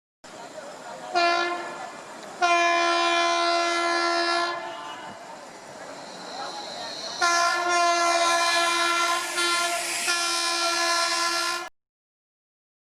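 Train horn sounding three times over rumbling running-train noise: a short blast, a longer blast of about two seconds, then a long blast of about four seconds that is cut off abruptly.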